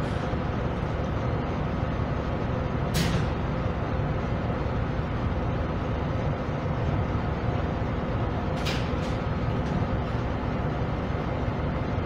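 Steady mechanical hum and background noise, with two short bursts of hiss, one about 3 seconds in and one near 9 seconds.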